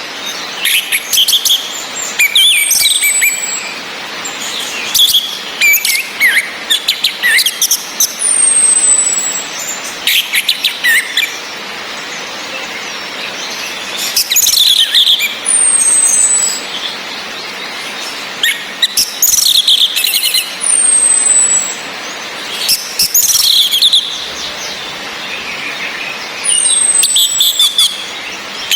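Orange-headed thrushes calling: six thin, very high whistles that fall in pitch, each a few seconds apart, among clusters of sharp, quick chirps. This is the female's 'ngecis' call used to rouse a male to sing. A steady hiss of rain runs underneath.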